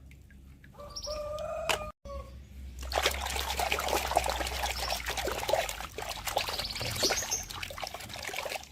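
Water trickling and splashing as a muddy toy is rinsed clean, starting about three seconds in.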